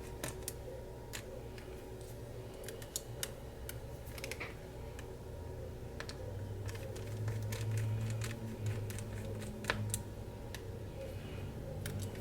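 Small metal clicks and taps of a screwdriver working the tiny internal screws of a MacBook Pro laptop, scattered and irregular. A low steady hum comes in about six seconds in.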